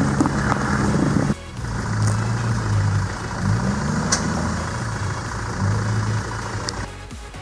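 Toyota Land Cruiser's engine working under load as the four-wheel drive climbs a steep rocky track. The engine revs up and drops back about halfway through, with a few sharp knocks from the vehicle or the rocks.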